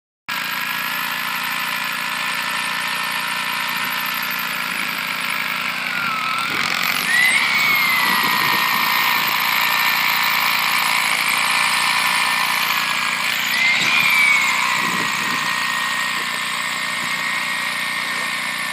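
An engine running steadily, with a high whine that rises briefly about seven seconds in and again about fourteen seconds in.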